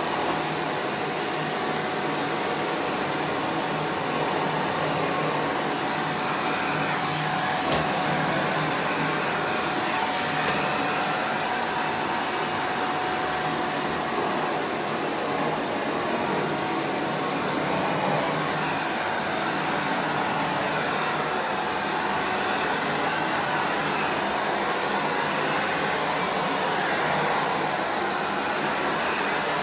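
Miele Boost CX1 bagless canister vacuum running steadily with a faint steady whine, its Parquet Twister floor nozzle sweeping over tiles and sucking up crumbs.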